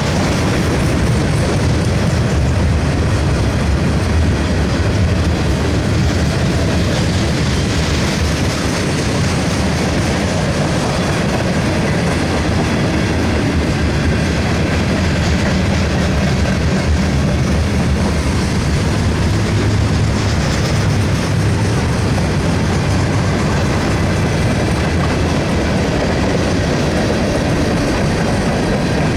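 Freight train cars rolling past at close range: a steady, loud rumble of steel wheels on the rails, with no horn.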